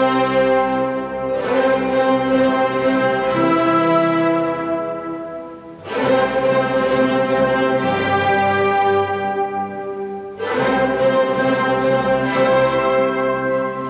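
Chamber orchestra of bowed strings playing classical music: long, sustained chords that swell and fade, with a fresh chord entering about six seconds in and again about ten seconds in.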